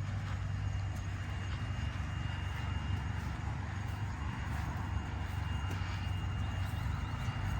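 Steady outdoor background drone: a low hum under an even haze of noise, with a faint steady high tone above it.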